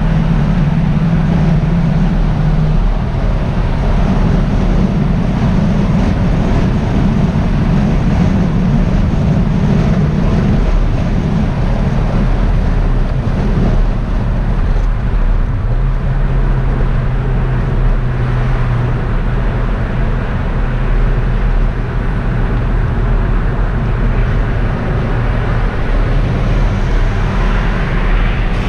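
Volkswagen Jetta engine and tyre and road noise heard from inside the cabin while cruising, a steady loud drone whose engine note steps in pitch a few times.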